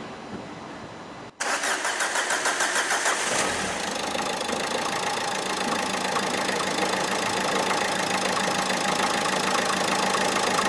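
Renault Megane 3 1.5 dCi diesel engine cranking on the starter about a second in, catching after about two seconds and settling into a steady idle. This is the restart after a fuel filter change, with the fuel system hand-primed and still passing a few air bubbles.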